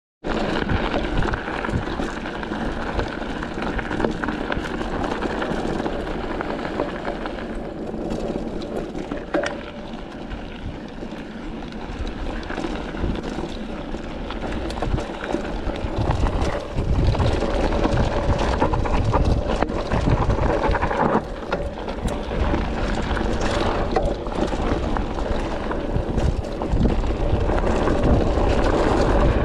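Specialized Rockhopper hardtail mountain bike ridden over loose gravel and stones: tyres rolling on the stony ground, with frequent knocks and rattles from the bike over the rough surface. Wind blows on the microphone, and its low rumble grows much stronger past halfway.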